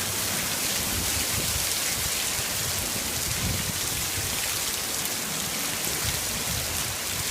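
Heavy rain pouring down steadily, a dense hiss of drops hitting the ground and surfaces, with a low rumble underneath.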